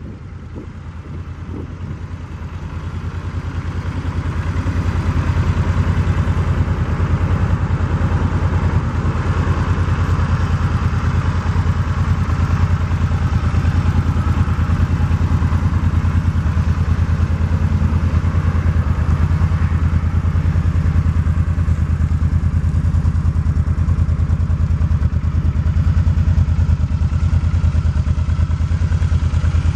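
2019 Suzuki Boulevard C50's 805 cc V-twin engine idling steadily, growing louder over the first few seconds and then holding even.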